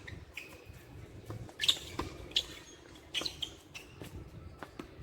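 Play on a tennis court: a few short, sharp high squeaks and snaps, the loudest about two seconds in, typical of tennis shoes squeaking on a hard court mixed with racket strikes on the ball.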